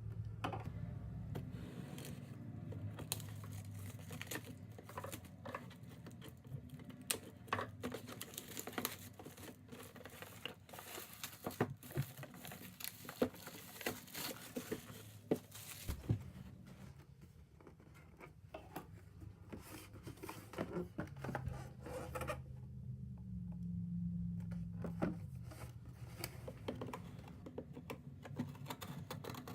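Packaging being opened and handled: crinkling and tearing with clusters of small clicks and taps, busiest in the first half and sparser later, over a low steady hum.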